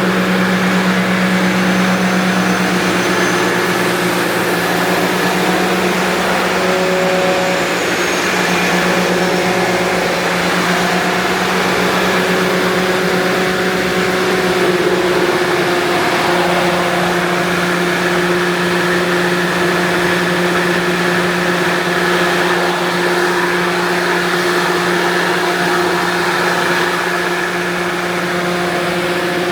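Sullair 20-125L 125 hp electric rotary screw air compressor running loaded, a loud steady hum and drone, as it builds pressure in a receiver tank from zero.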